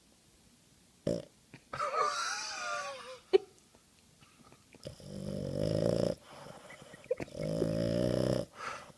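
Boston Terrier snoring in its sleep: two long snores of about a second each, roughly two seconds apart, in the second half. Before them come a short wavering high squeak and a couple of sharp clicks.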